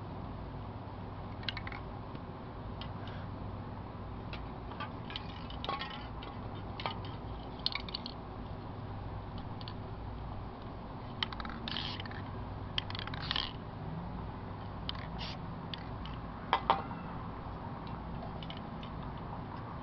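Aerosol spray-paint can hissing in two short bursts about halfway through, over a steady low hum. Scattered light clicks and taps are heard, and a pair of sharp knocks near the end is the loudest sound.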